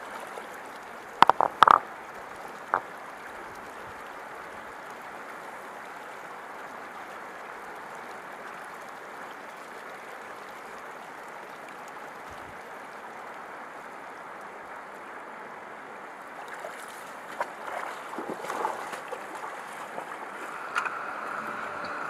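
Shallow river running steadily over stones. A few sharp clicks come about a second in, and in the last few seconds there is irregular splashing, as of someone wading through the water.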